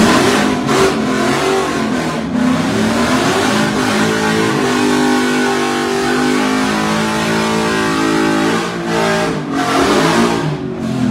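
Rotary-engined Mazda GLC drag car revving while standing still: sharp throttle blips near the start, then a climb to a high rev held steady for several seconds, then more quick blips and a drop back near the end.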